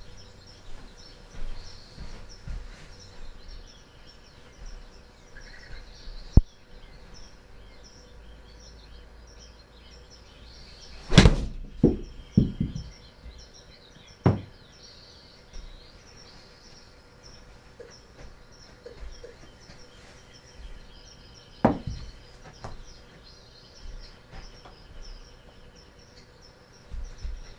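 A full-swing 60-degree wedge striking a TaylorMade Tour Preferred X golf ball, one sharp crack a little over a third of the way in, followed by a few thuds as the ball hits the simulator's impact screen and drops and bounces. Two other single sharp knocks, one before the shot and one well after.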